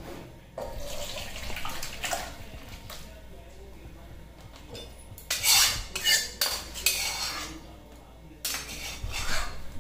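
Flat metal spatula scraping and knocking against steel cookware as cooked chicken curry is scraped out of the pan into a steel bowl. It comes in several bouts of scraping and clinks, the loudest a little past halfway through and another near the end.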